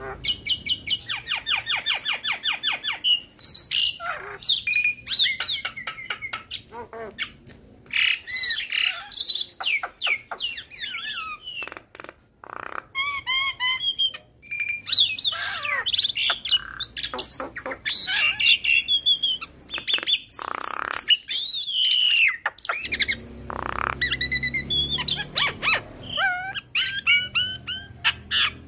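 Javan myna singing a long, varied song in full voice: a fast run of repeated notes over the first few seconds, then a busy mix of rising and falling whistles and harsh squawks, broken by short pauses.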